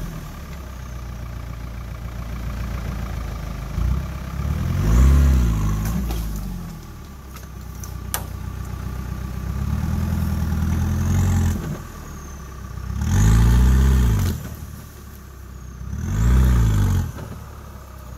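Off-road buggy's engine revving up and dropping back in four separate bursts, with lower engine running between them, as it crawls up a steep slope. A single sharp click about 8 seconds in.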